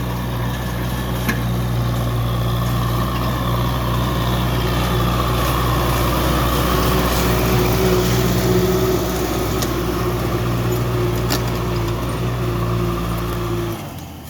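Kubota tractor's diesel engine running steadily, with an even low hum, then dropping away abruptly near the end.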